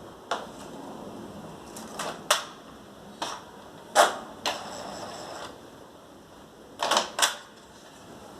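Epson L210 ink-tank printer's mechanism running its start-up cycle: a motor runs with a series of sharp mechanical clicks and clacks, about eight in all, with two close together near the end. The tensioner is out of place, so the printer is heading for its jam error with all lights flashing.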